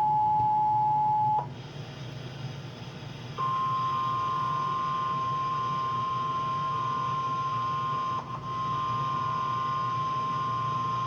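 Emergency Alert System two-tone attention signal, a steady dual tone that cuts off about a second and a half in. After a two-second gap a single steady, slightly higher alert tone starts and holds, with a brief waver about eight seconds in.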